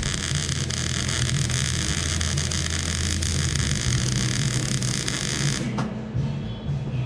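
A metalworking power tool runs steadily with a hiss and cuts off suddenly near the end, over background music.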